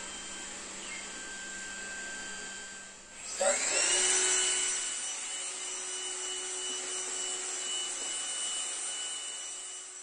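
Trifo Max robot vacuum cleaner running with a steady high whine from its suction fan. About three seconds in, the whine briefly drops away, then spins up again with a rising pitch, runs on steadily, and eases off slightly near the end.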